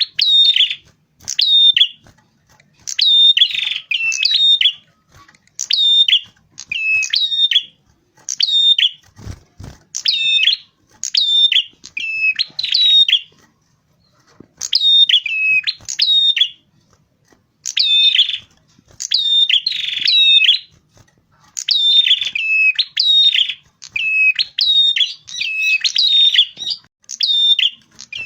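Prinia (prenjak) calling loudly: short, sharp phrases of high notes that step down in pitch, repeated over and over in quick clusters with brief pauses between them.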